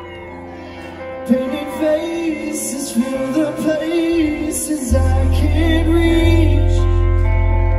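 Live band playing amplified music on electric guitars and drums. It gets louder and fuller with a sharp hit about a second in, and a heavy bass comes in about five seconds in.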